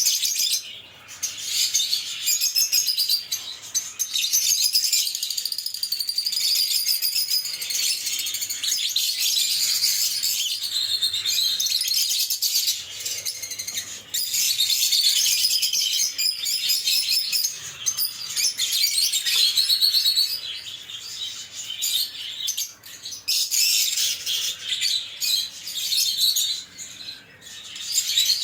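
Lovebirds chirping and twittering constantly in high-pitched, rapid, overlapping calls.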